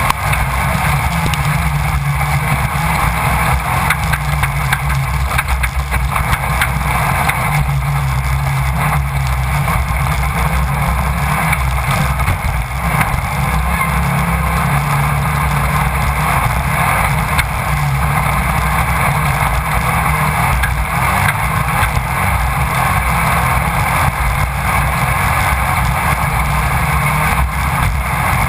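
In-car sound of a Class 1600 off-road race buggy at speed: its air-cooled VW 1600 cc engine running hard at high revs, its pitch shifting up and down with throttle and gear changes, over heavy wind and road noise.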